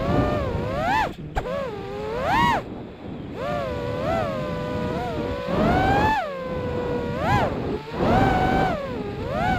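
FPV quadcopter's brushless motors whining, the pitch swooping up and down again and again as the throttle is punched and cut, with a rough rushing noise underneath.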